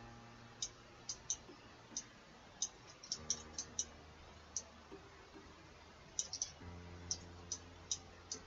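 Computer mouse clicking at irregular intervals, sharp short clicks, some in quick pairs, over a faint low hum that comes and goes.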